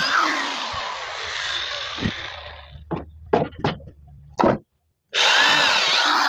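Handheld corded electric drill boring into the wooden blocks that the lathe stands on, its pitch wavering under load and dying away over the first two seconds. Five knocks follow, one at a time, as the drill is handled, then after a brief silence the drill runs again, loud, about five seconds in.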